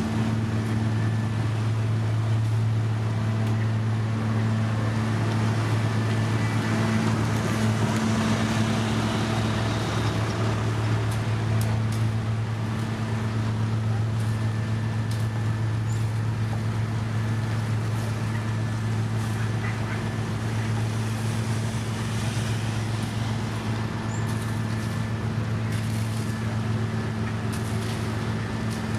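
Heavy road-construction machinery engine running steadily, a low constant hum, with scattered faint clicks and knocks in the second half.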